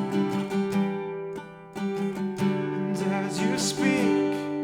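Acoustic guitar strumming chords in a slow worship song, with a short sung line curving in pitch about three seconds in.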